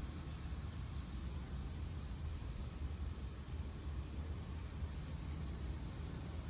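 Crickets chirring: a steady, high, thin trill that goes on without a break, over a low steady rumble.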